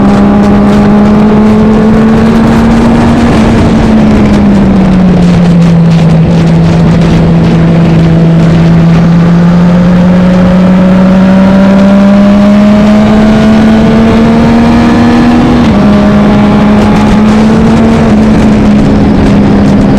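Historic road-racing motorcycle engine running hard under race load, very loud. Its note falls a few seconds in, climbs slowly through the middle as the bike accelerates, and drops sharply about three quarters of the way through, as with a shift or easing off for a corner.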